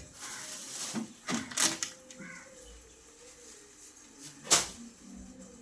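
Knocks and clatter of objects being handled, with a brief rustling hiss at the start, a few sharp knocks around one and a half seconds in, and a louder single knock about four and a half seconds in.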